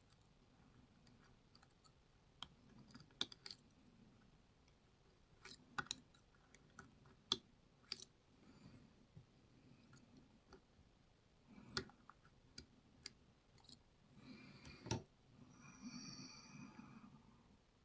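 Faint, irregular small metal clicks and taps of lock picks working the pins and sliders inside a Lockwood MT5 lock, with a brief squeak near the end.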